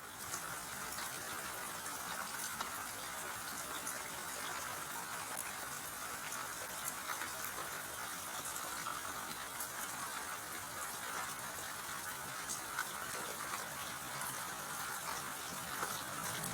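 Steady rainfall, an even hiss with scattered small drop ticks throughout.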